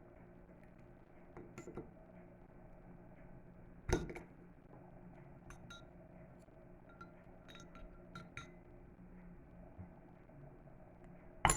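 Leatherman Micra's bottle opener clinking and scraping against the metal cap of a glass Coca-Cola bottle: scattered small metallic clicks, a louder knock about 4 seconds in and a sharp click near the end as the opener works at the cap.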